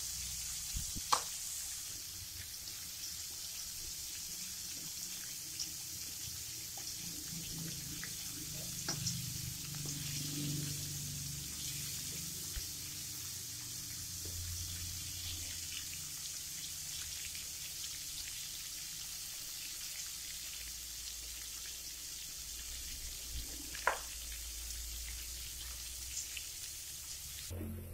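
Flour-battered shrimp deep-frying in hot oil in a wok: a steady sizzling hiss with light crackles as the batter cooks toward golden. Two sharp clicks stand out, about a second in and near the end.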